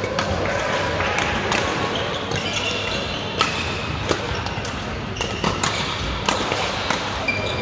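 Badminton rally: sharp clicks of rackets striking the shuttlecock, with a hard smash about four seconds in, echoing in a large sports hall alongside hits from neighbouring courts. Short squeaks of shoes on the court floor come between the hits.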